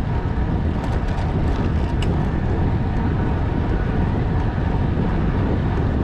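Steady rush of wind on the microphone mixed with the tyre and road noise of a carbon road bike rolling along at speed on pavement, with a few faint ticks about one to two seconds in.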